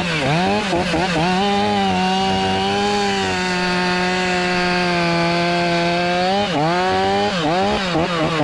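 Two-stroke chainsaw revved in quick throttle blips, then held at a steady high speed for about four seconds, then blipped up and down again near the end.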